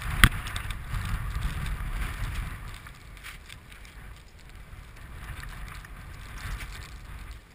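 Wind buffeting a helmet-mounted camera microphone, a low rumble that eases after the first couple of seconds. A single sharp click sounds about a quarter second in, with a few fainter clicks later.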